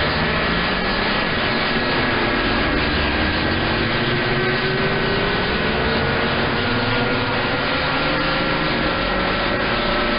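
AM receive audio from a radio tuned to 27.025 MHz on the 11-meter band: a steady hiss of noise with several faint whistles, one rising slowly in pitch. The whistles are carriers from several stations keyed up on the same channel beating against each other.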